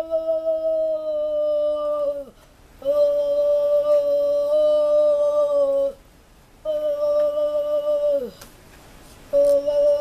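A boy's voice humming long steady notes of about two to three seconds each, each sliding down in pitch as it ends, with short breaths between. A new note starts near the end.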